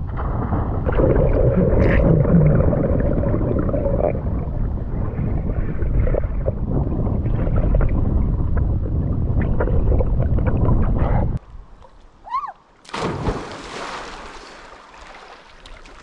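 Muffled underwater rumble and bubbling from a camera held under lake water, cutting off suddenly about eleven seconds in. Near the end comes a bright rush of splashing water that fades away.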